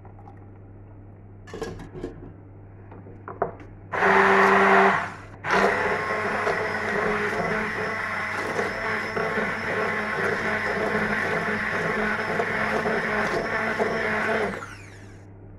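Electric blender puréeing a thick chickpea sauce. A few light knocks, then a short burst about four seconds in, a brief stop, and a steady run of about nine seconds that winds down near the end.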